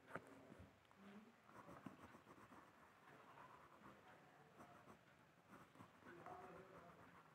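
Faint scratching of quick shading strokes on paper, with a sharp tap just after the start.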